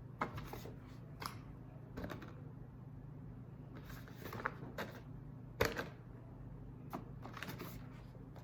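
Scattered light taps and clicks, about eight at irregular intervals, from a hand tapping letters on a teaching board, over a low steady hum.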